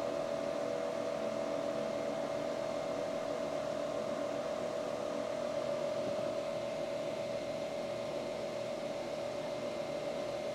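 A steady machine hum with one strong mid-pitched tone, unchanging in pitch and level; no pop or burst.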